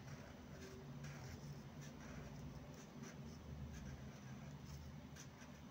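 Faint scratching of a broad-edged calligraphy pen nib drawn across paper in short, irregular strokes as letters are written, over a low steady background hum.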